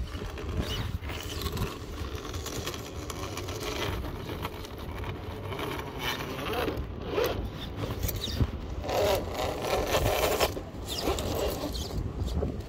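Traxxas TRX-4 scale Defender RC crawler's electric drivetrain whirring as it crawls over boulders, with its tyres scraping and grinding on the rock. The sound grows louder about six seconds in and again from about nine to ten and a half seconds in.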